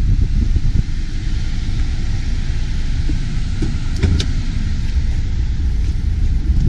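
Wind buffeting the microphone: a loud, uneven low rumble, with a couple of faint clicks about four seconds in.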